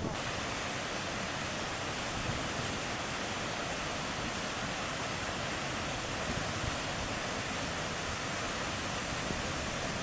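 Düden waterfall: water rushing and crashing over rocks as a steady, dense hiss of white water.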